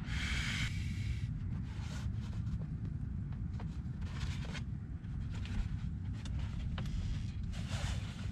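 A breath blown into an inflatable camping pillow for about a second, then faint rustling and handling of the pillow and the folding lounge chair as he leans back, over a steady low rumble.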